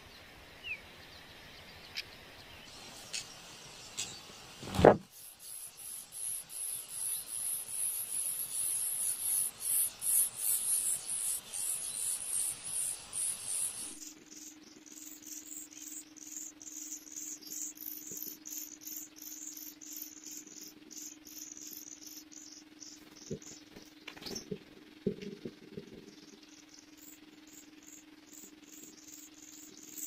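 A fast, even run of very high-pitched chirps, several a second, begins after a sharp knock about five seconds in and is loudest in the first half. From about halfway the chirps drop a little in pitch and grow quieter, over a faint steady hum, with a few small clicks.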